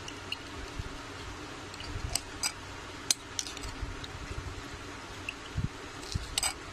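Steel spoon pressing wet ground amla pulp through a metal strainer, with a few scattered light clinks and scrapes of spoon against the strainer and soft thuds.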